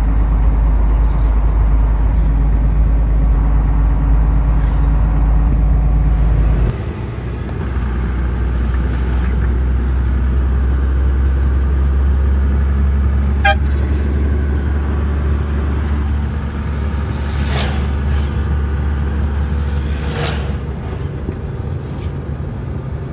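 Tanker truck's engine running steadily, heard from inside the cab while driving on the road. About seven seconds in, the low engine note drops abruptly and then runs on, and a short horn toot sounds around halfway.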